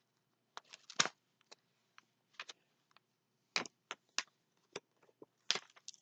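Scattered crinkles and light taps from a rolled diamond painting canvas being handled, loudest about a second in, near the middle and near the end.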